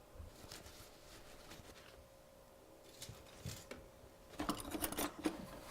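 Light kitchen handling sounds: a few faint taps, then from about four and a half seconds in a louder run of clicks and scrapes as a knife and apples are handled on the work surface.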